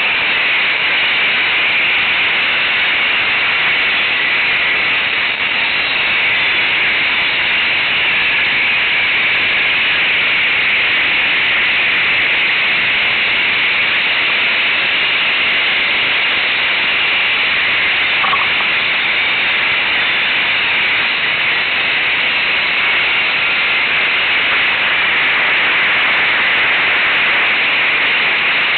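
Loud, steady hiss like static, with no engine or other distinct sound standing out.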